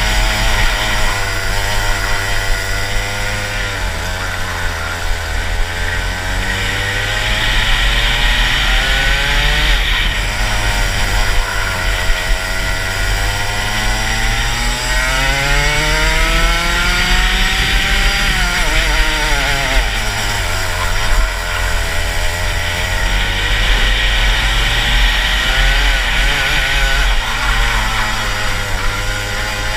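Rotax Max 125cc single-cylinder two-stroke kart engine at racing speed, its revs rising and falling with the corners: a long climb in pitch about halfway through, then a sharp drop as the kart slows for a turn. The kart is geared long (72/12 sprockets), which the owner says is too long for this twisty track, so it does not pull out of the corners as well as it should.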